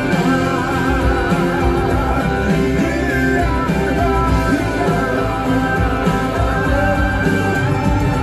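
Country-rock song with a man singing over electric guitars and a band, heard through cinema speakers.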